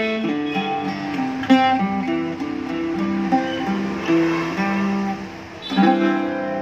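F5-style mandocello played with a pick: a melody of single picked notes, with a strummed chord about a second and a half in and another strummed chord near the end that is left ringing.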